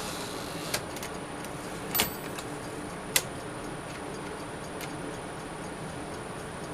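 A 1959 Smith-Corona Silent-Super manual typewriter being worked slowly: four separate sharp mechanical clacks, a second or more apart, the second one slightly longer, over a steady low hum.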